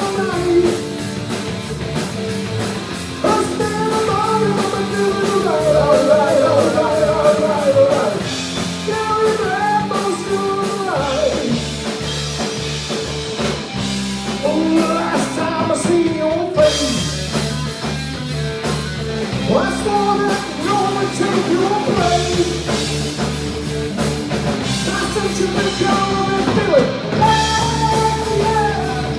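A live rock band playing a song, with a singer over electric guitar and drums.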